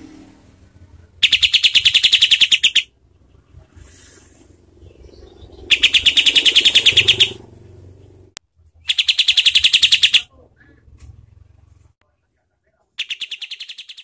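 Kapas tembak bulbul singing in four separate bursts of harsh, rapid-fire repeated notes, about ten a second, each burst lasting about a second and a half. These are its 'tembakan' shooting calls. The last burst starts near the end.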